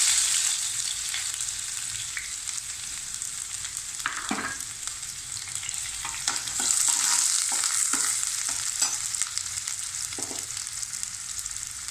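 Sliced onions sizzling in hot oil in a kadai, stirred as they fry, with occasional short scrapes and taps against the pan. The sizzle swells for a couple of seconds around the middle.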